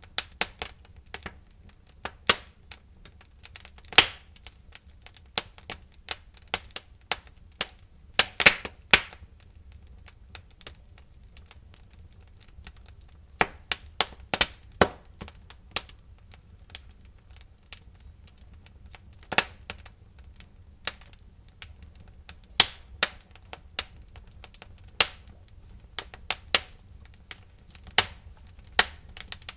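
Wood fire in a fireplace crackling: irregular sharp pops and snaps, some much louder than others, with a cluster of loud snaps about eight seconds in, over a faint low rumble.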